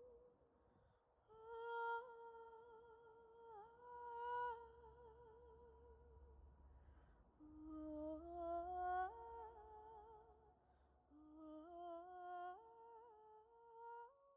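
A woman's soft, wordless hummed singing with added reverb: a long note held with vibrato, then two phrases that climb note by note.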